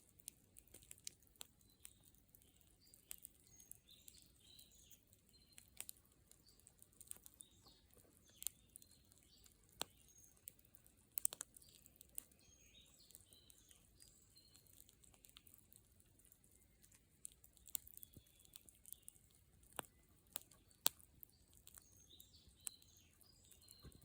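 Faint crackling of a wood bonfire: irregular, sharp pops and snaps scattered through near silence.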